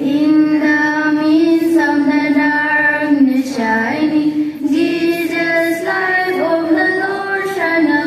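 Children singing a slow melody with long held notes.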